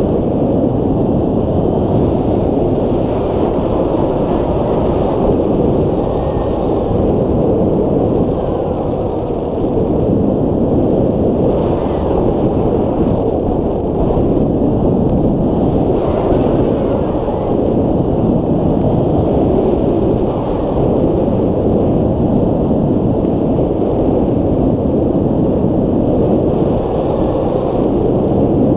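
Wind from the airflow of a hang glider in flight buffeting the microphone of a camera mounted on its wing: a loud, steady rushing rumble.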